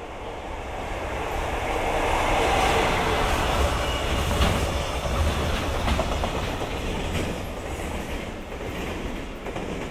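JR Freight EF66 100-series electric locomotive and its container wagons passing, wheels clacking over the rail joints. The sound builds to a peak a couple of seconds in, then slowly fades as the wagons roll by.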